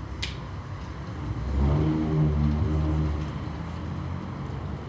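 A motor vehicle's engine passing close by, its steady low note swelling over about a second, holding, then fading away.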